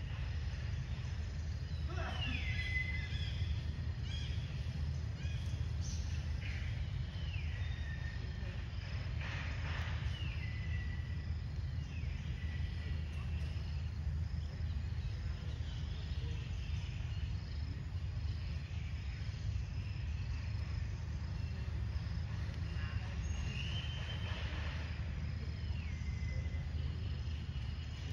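Outdoor ambience: a steady low rumble, with a high call every few seconds that slides down in pitch and then holds briefly.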